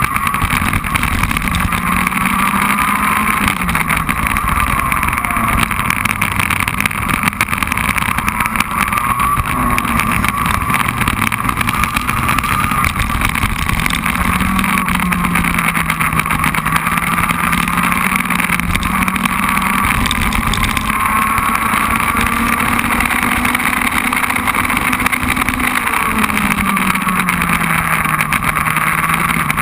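Race car engine heard from an onboard camera at speed, its note rising and falling as it brakes for corners and accelerates out, with wind and tyre noise on the microphone.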